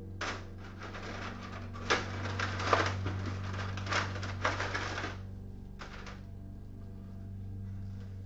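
Pieces of burnt copper wire clattering against each other and the plastic bucket as they are rummaged through: a run of light clicks and rattles that stops about five seconds in, with one more a second later. A steady low hum runs underneath.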